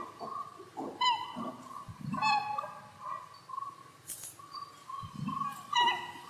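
Short, squeaky animal calls, the sound effect standing in for the cartoon rabbits, coming every second or two. The loudest are about a second in, just past two seconds and near the end, over a faint wavering chirping.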